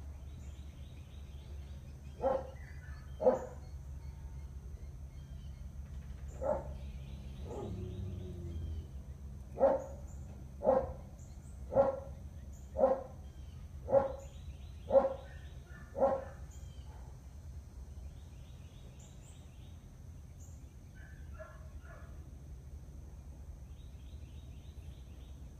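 A dog barking in single sharp barks: a few spaced-out barks, then a steady run of about one bark a second that stops about two-thirds of the way through.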